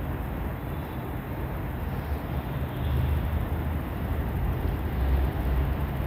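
Low, uneven rumbling background noise with no distinct events, swelling a little about halfway through.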